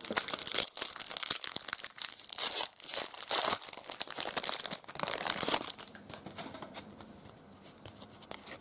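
A foil trading-card pack being torn open and crinkled as the cards are pulled out. The crinkling dies down after about six seconds to faint handling of the card stack.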